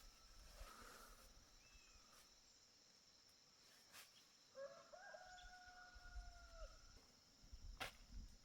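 A rooster crowing once, faint, about halfway through: a single call that rises and then holds for about two seconds. A steady high insect drone runs underneath.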